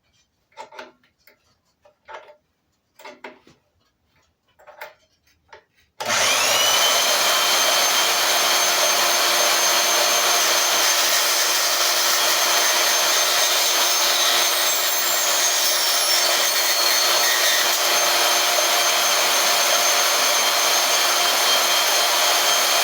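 A few light handling knocks, then a Harbor Freight portable band saw starts about six seconds in. It spins up with a rising whine and runs steadily while cutting a piece of thin aluminum flashing, and it begins to wind down right at the end.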